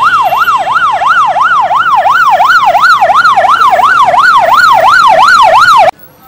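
Electronic siren on a convoy escort vehicle, wailing up and down quickly about three times a second, loud and close. It cuts off suddenly near the end.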